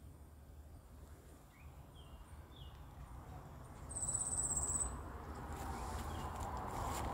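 An insect, cricket-like, trills high-pitched for about a second a little past the middle, the loudest sound here. Before it come a few short bird chirps over a low rumble, and a rustling noise rises near the end.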